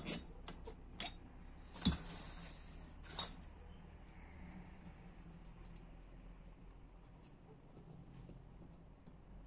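Light metal clicks and taps from a two-stroke piston ring being set square in the cylinder bore and feeler gauge blades being tried in its end gap. A handful of sharp ticks, the loudest about two seconds in, then only faint small clicks.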